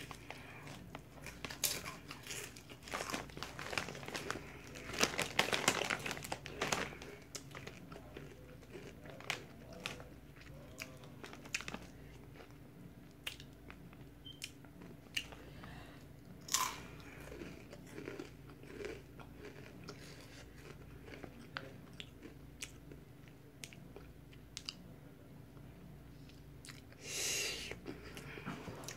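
Rolled tortilla chips (Fuego Takis) crunching and being chewed close to the microphone. The crunching is densest and loudest a few seconds in, then thins to scattered crunches. There is a short hissing burst near the end.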